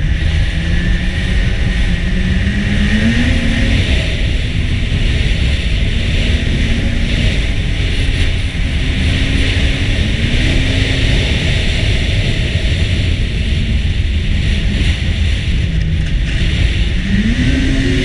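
Ski-Doo Renegade 800 snowmobile's two-stroke twin engine running under throttle along a trail. Its pitch climbs about three seconds in, again about ten seconds in and near the end as the rider accelerates. Heavy wind rush sounds on the helmet microphone throughout.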